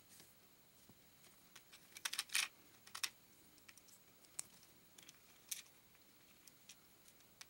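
Small plastic LEGO pieces clicking as they are pressed and snapped together by hand: a quick cluster of clicks about two seconds in, the loudest, then single clicks every second or so.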